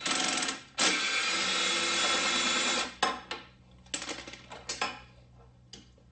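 A power tool runs steadily for about two seconds as a bolt is backed out of the ATV's front fairlead mount, followed by several short metal clicks and clanks as the loosened hardware is handled.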